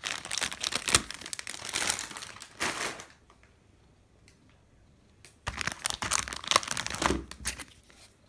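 Plastic cat-treat packaging crinkling as it is handled, in two spells: about three seconds at the start, then a shorter one about two seconds long from five and a half seconds in, with a quiet gap between.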